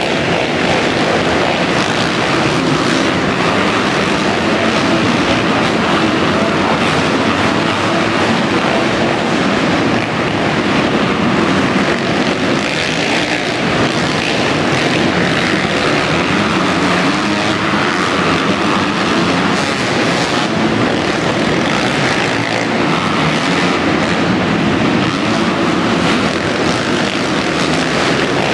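A pack of dirt bikes racing on an indoor arenacross track, many engines running hard together in one loud, steady drone that echoes under the arena roof.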